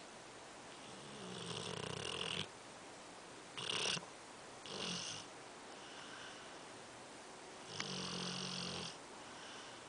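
A sleeping dog snoring: a long, low buzzing snore about a second in, two short sharp snorts in the middle, and another long snore near the end.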